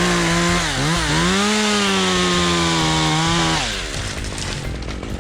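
Chainsaw at full throttle cutting through elm wood, its pitch dipping twice under load, then dropping back to idle near the end.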